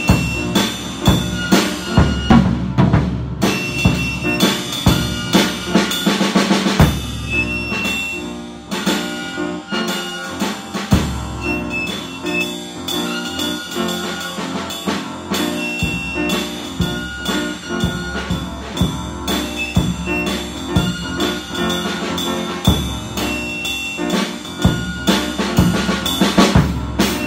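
Instrumental band music: a drum kit keeps a steady beat under sustained pitched instruments.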